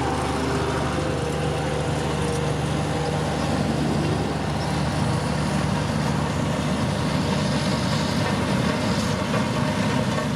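Diesel engine of a heavy road-construction machine running steadily under load, a constant low engine note with clatter and noise above it.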